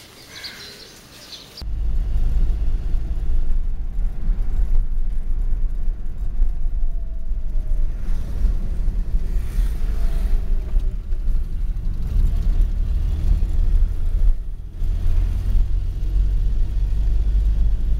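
Riding in a moving taxi: heavy wind rumble on the microphone over road and engine noise, starting about a second and a half in and running steady after that.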